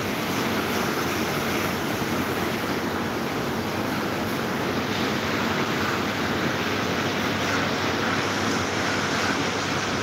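Several small electric table fans running at speed: a steady rush of moving air.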